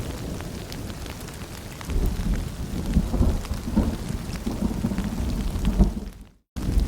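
Steady rain pattering with scattered drips, under a low rumble of distant thunder that swells about two seconds in. The sound cuts out completely for a moment near the end, then resumes.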